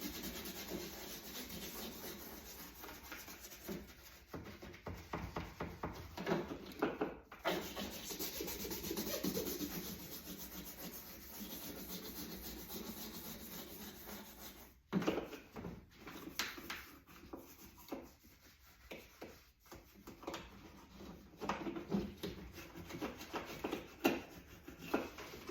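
A small brush scrubbing inside a dishwasher with baking soda: rapid, scratchy back-and-forth strokes, stopping briefly twice.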